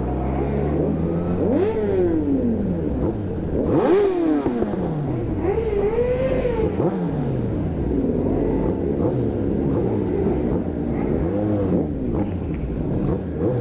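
Several sport motorcycle engines running at once, revving up and dropping back with their pitches rising and falling over one another; the sharpest rev comes about four seconds in.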